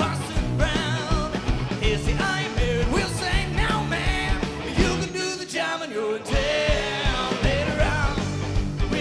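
Live rock band performing: a male lead singer holding wavering, sustained notes over electric guitar and drums. About five seconds in, the bass and drums drop out for roughly a second, then come back in.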